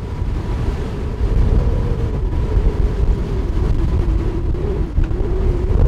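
Strong headwind buffeting the microphone aboard a catamaran motoring into the wind, a loud rough rumble with a faint wavering hum underneath.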